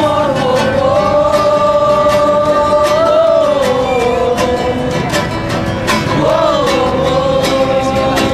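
Steadily strummed acoustic guitar with people singing along, holding long notes that glide from one pitch to the next.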